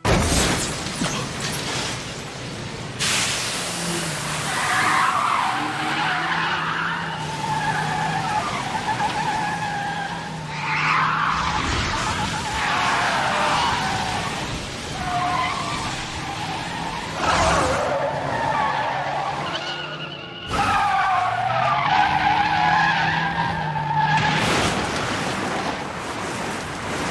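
Toyota AE86's twin-cam 16-valve engine running at high revs, with tyres squealing in several drawn-out bursts as the car drifts through corners.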